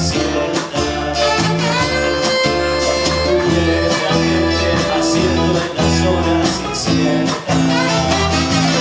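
Live band music: a saxophone playing a melody over a strummed acoustic guitar, a bass line and a steady beat.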